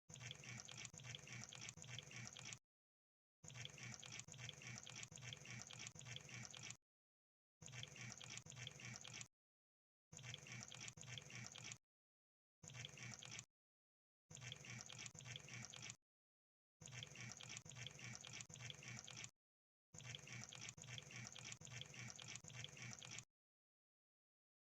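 Crab sound effect: quiet bursts of rapid, wet-sounding clicking and crackling, eight of them, each lasting one to three seconds and separated by short silent gaps.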